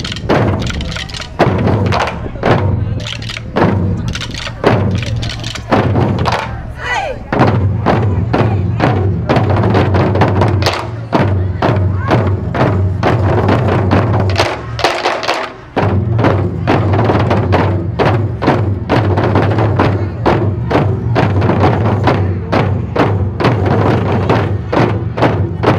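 Music with hard, heavy drum beats and a steady deep bass, breaking off briefly about halfway through.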